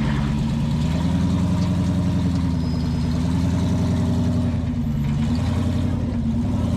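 Off-road rock crawler's engine running steadily at low revs, its pitch shifting a little about five seconds in.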